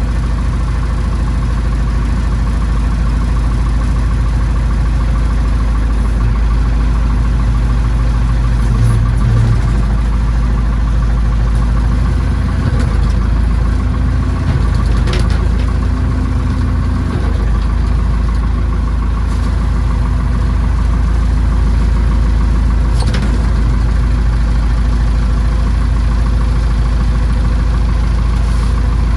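Massey Ferguson tractor engine running steadily at constant speed, with a few faint clicks over it.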